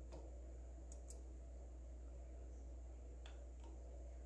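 A few faint, sharp clicks over a steady low hum: a measuring tool being set against the rear brake shoes to gauge lining thickness.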